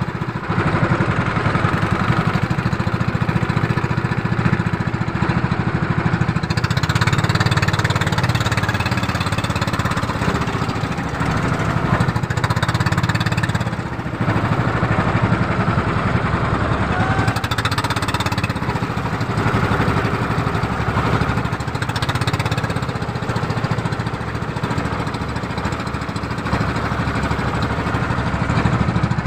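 Motorized outrigger boat's small inboard engine running steadily at cruising speed with a fast, even chugging, over a hiss of water and wind.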